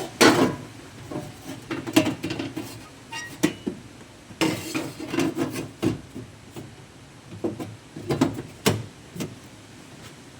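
Irregular metallic clanks and knocks of cut sheet-steel car body pieces being handled and set down, in several short clusters with brief ringing.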